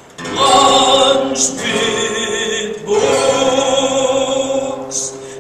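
A man singing long held notes to his own acoustic guitar strumming: two sustained phrases, the second starting about halfway through.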